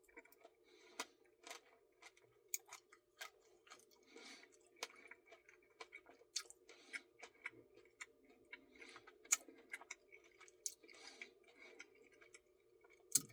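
Faint eating sounds while working through a Dairy Queen Blizzard: scattered small clicks and soft chewing noises, over a low steady hum.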